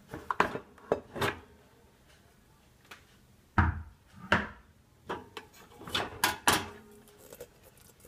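Pots, pans and bowls packed in a dishwasher rack knocking and clinking as they are handled, about ten sharp knocks in three clusters, some with a short metallic ring.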